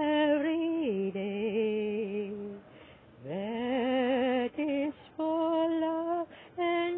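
A woman's voice singing a slow melody unaccompanied, in long held notes, several of them sliding up into pitch at the start, with short pauses between phrases.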